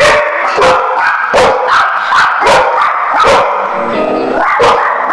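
Dog barking repeatedly, about eight sharp barks in quick succession, then a pause and one more bark, over background music.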